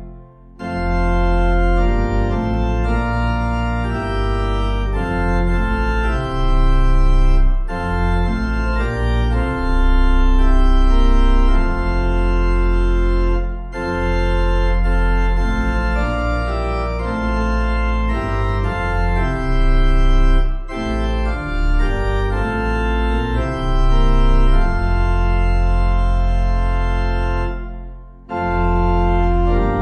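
Organ playing a Pentecost hymn in full held chords over a deep bass. It stops briefly between phrases, about every six to seven seconds.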